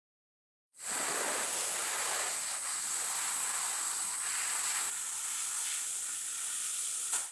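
A steady hiss, strongest in the high range, with a thin high tone running through it. It starts abruptly about a second in and cuts off suddenly near the end.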